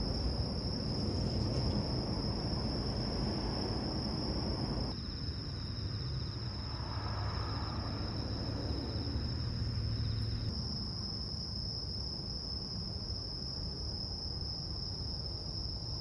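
Crickets trilling in a steady, unbroken high chorus at night, with a second, lower insect trill joining for several seconds in the middle, over a low steady rumble.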